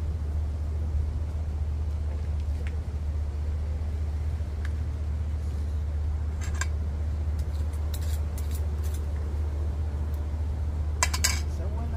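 Steady low rumble with a few sharp clinks of a metal utensil against a cooking pot, a cluster of them near the end being the loudest.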